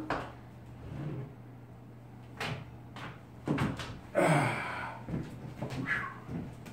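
A heavy old pressed-wood end table being handled and carried: separate wooden knocks about two and a half and three and a half seconds in, then a louder thump with a short scrape about four seconds in, and a lighter knock near the end.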